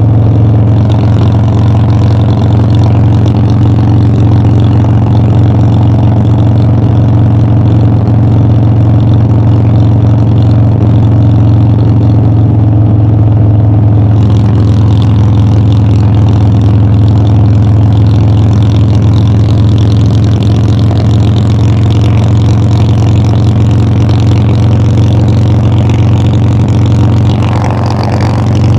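Harley-Davidson Dyna's air-cooled V-twin engine running steadily while riding, its exhaust note holding one even pitch, with a brief dip in level near the end.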